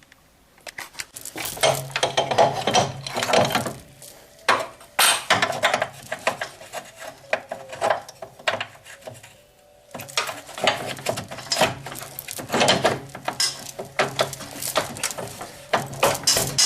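Metal parts clanking and clinking irregularly as they are handled and set down on a workbench, with a steady low hum coming and going.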